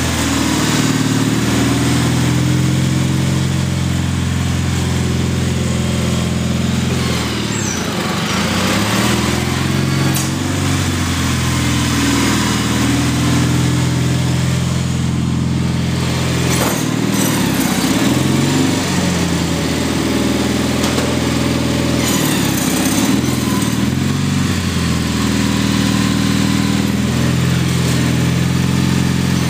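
Gravely garden tractor's engine running under load while plowing snow, its pitch shifting a few times as the tractor works back and forth.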